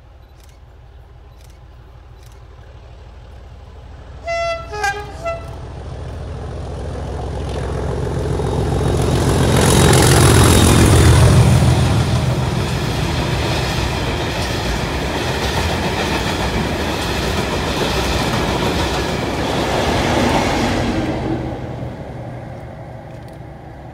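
A pair of Class 37 diesel locomotives with English Electric V12 engines passing at speed. Their horn sounds in three short blasts about four seconds in. The engines' roar then swells to its loudest around ten to twelve seconds in as they go by, followed by the running noise of a long train of hopper wagons, which fades near the end.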